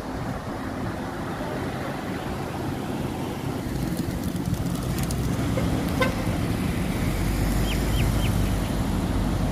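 Road traffic noise with a car engine running steadily underneath, and three short high chirps about eight seconds in.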